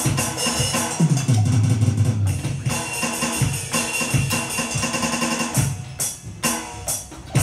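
Drum kit played live and fast: snare and bass drum hits under ringing cymbals, with other instruments playing along. The hits become sparser near the end.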